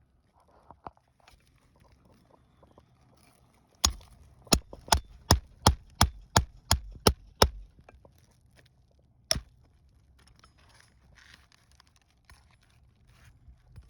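Hammer striking a metal roof snake wedged under asphalt shingles to work a roofing nail loose: a quick run of about ten sharp blows, roughly three a second, then a single blow a couple of seconds later, with light scraping around them.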